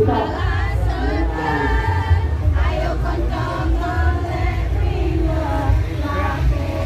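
A group of women singing and chanting a parade cheer together, several voices at once, over a steady low rumble.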